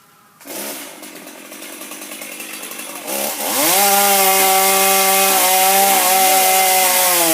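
Two-stroke chainsaw comes in suddenly about half a second in, running at low speed. About three seconds in it revs up to full throttle and holds a steady high-pitched note.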